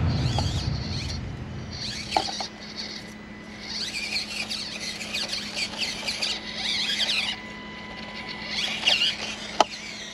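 Axial SCX24 1/24-scale rock crawler driving over rocks: its small 180 brushed motor runs with a steady hum, with high-pitched squeals coming and going in short clusters.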